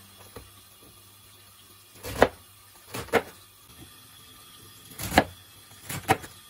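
Kitchen knife chopping through napa cabbage onto a cutting board: about six sharp cuts, some in quick pairs, with pauses between.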